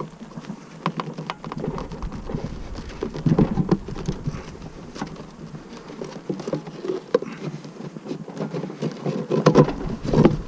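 Irregular clicks, knocks and scrapes as the can of sugar syrup is worked out of a wooden-and-screen honeybee package, over the buzz of the honeybees inside.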